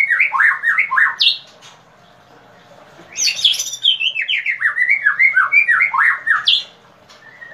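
White-rumped shama song: rapid runs of sharp, downslurred notes stepping down in pitch. One run ends a little over a second in, and after a short pause a second run lasts about three and a half seconds.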